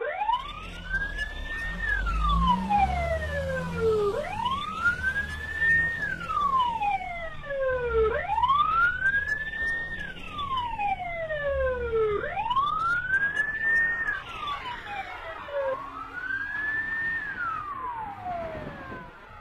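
Wailing siren rising and falling slowly, about one full sweep every four seconds.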